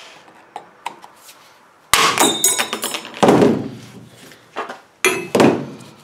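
Hammer striking a steel chisel to drive the hard plastic impeller off the motor shaft of a GE dishwasher pump: several sharp metallic strikes with a brief ring, beginning about two seconds in and coming again about five seconds in.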